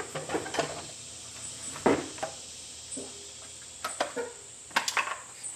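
Light knocks and clicks of a Centurion bullpup shotgun's upper half and polymer lower half being handled and lined up, the loudest knocks about two seconds in and near the end. A steady high-pitched whine runs underneath.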